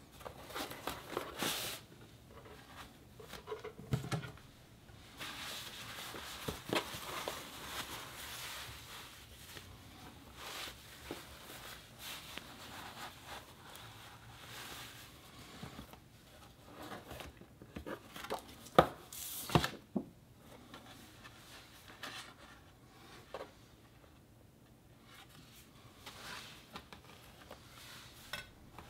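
Textured kraft packing paper being unfolded and rustled by hand, with crinkling and small handling clicks. There are two sharp knocks about two-thirds of the way in.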